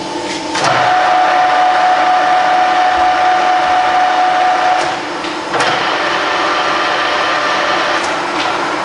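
Colchester Triumph 2000 lathe's headstock gearbox running with the spindle at 190 rpm: a steady mechanical running sound with a gear whine. It gets louder about half a second in, dips briefly about five seconds in, then runs on with a changed whine after a sharp click.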